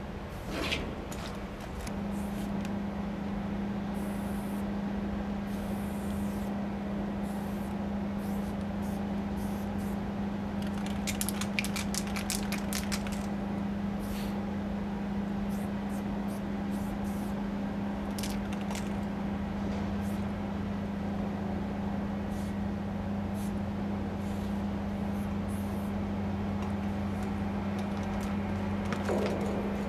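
Steady low hum of an idling engine under short hisses of aerosol spray paint. A quick run of clicks around the middle.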